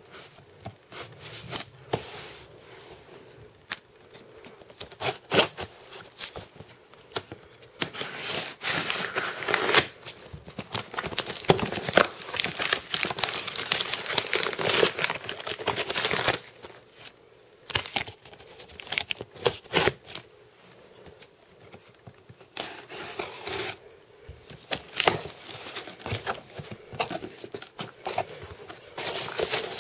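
Packaging being opened by hand: tearing, with crinkling and rustling in irregular bursts and scattered sharp clicks and knocks.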